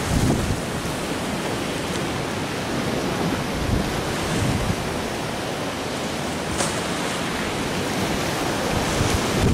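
Choppy sea with waves breaking, and strong wind gusting on the microphone.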